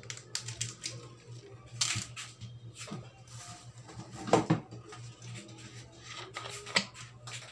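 Chicken wings sizzling and crackling in an aluminium wok on a gas burner just after vinegar has been poured in, with irregular pops, the loudest about four and a half seconds in.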